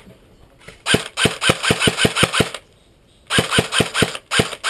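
Airsoft gun firing on full auto: two long bursts of rapid, evenly spaced shots, the first about a second in and the second past the middle, with a third burst starting near the end.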